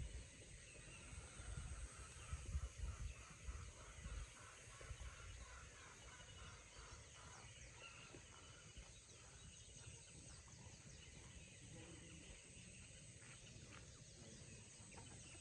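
Faint outdoor ambience: distant bird calls over a steady high hiss, with low rumbling bumps in the first four seconds.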